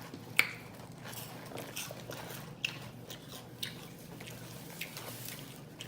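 A person biting and chewing fast food, with scattered sharp mouth clicks; the sharpest comes about half a second in.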